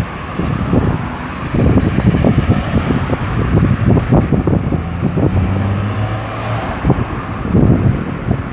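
Road traffic at a busy roundabout: cars and heavier vehicles passing with a steady rumble of engines and tyres. A steady engine hum stands out for a second or so past the middle.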